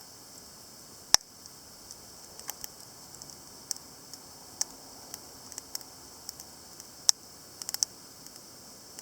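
Wood fire crackling: irregular small ticks and pops, with two loud sharp snaps, one about a second in and one about seven seconds in, followed by a quick cluster of pops.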